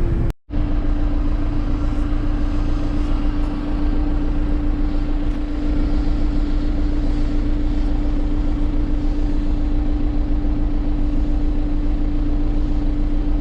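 Farm diesel engine running steadily at constant speed, with a strong, unchanging whine over a deep drone. It cuts out for a moment just after the start, then carries on.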